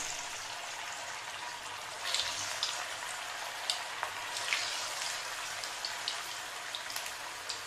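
Breadcrumb-coated corn cheese balls deep-frying in very hot oil in a kadhai: a steady sizzle with scattered small pops and crackles as more balls are slipped in.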